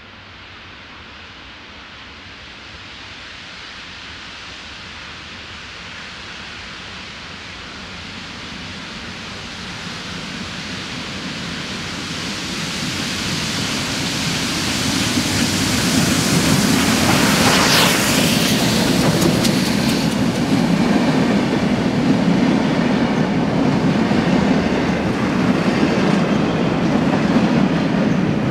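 Triple-headed steam train of Victorian Railways locomotives D3 639, A2 986 and R761 approaching and passing, growing steadily louder. The sound peaks as the locomotives go by about 17 seconds in, then the passenger carriages roll past with a steady rumble of wheels on the rails.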